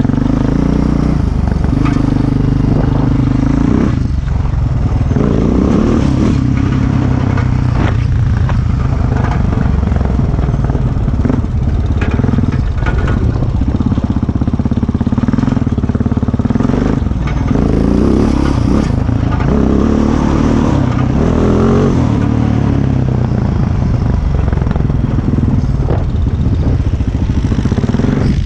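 Single-cylinder four-stroke ATV engine running under throttle across rough ground, its pitch rising and dropping as the rider speeds up and eases off, with occasional knocks.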